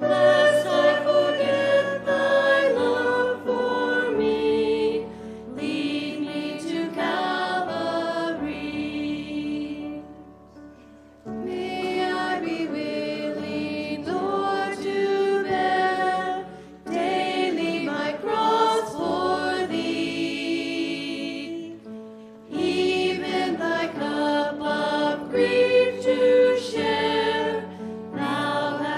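Three women singing a hymn together over steady instrumental accompaniment, in phrases with short breaks between them.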